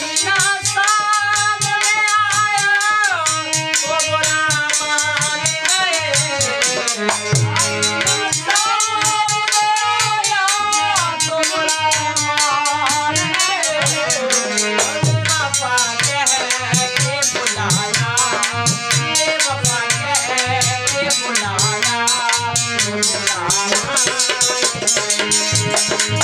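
Harmonium playing a melody of held notes over dholak drum strokes, with a fast, steady jingling rattle keeping time over them.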